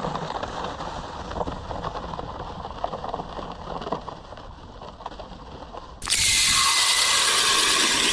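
Boots crunching and a plastic sled scraping over snow-crusted lake ice. About six seconds in this cuts to a cordless drill turning an ice auger into the ice: a loud, steady whine with grinding, played at double speed.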